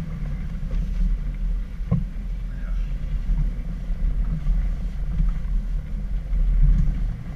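Suzuki Jimny driving off-road in low-range four-wheel drive, its engine a steady low drone under load, with a single knock about two seconds in.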